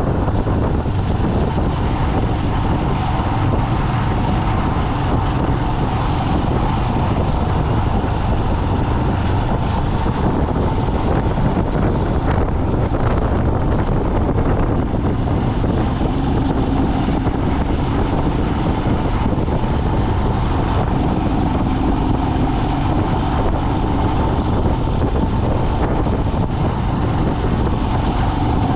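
A moving road vehicle's engine and tyre noise running steadily, with wind rushing over the microphone and a faint hum that shifts slightly in pitch.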